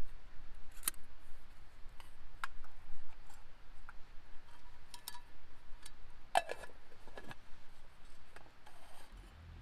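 Irregular light clicks and clinks of small hard objects being handled, a few with a brief metallic ring.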